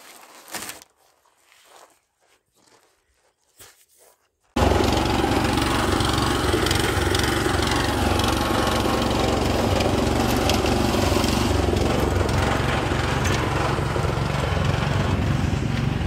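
A portable concrete mixer's small engine runs loudly and steadily while mixing concrete. It starts abruptly about four and a half seconds in, after a few faint crunches like footsteps on dirt.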